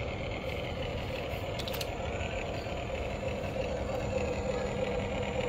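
Huina remote-control excavator running with a steady mechanical hum, with a brief click about one and a half seconds in and a low steady tone joining about halfway.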